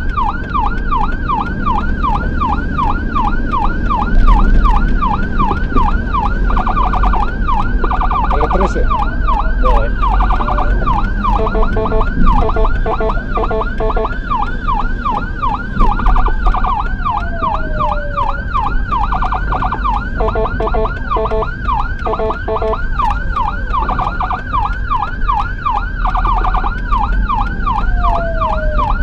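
Ambulance siren on a rapid yelp, about three rising-and-falling sweeps a second, switching for a few seconds at a time to a faster pulsing tone, with a slow falling tone twice. Heard from inside the ambulance over steady engine and road rumble.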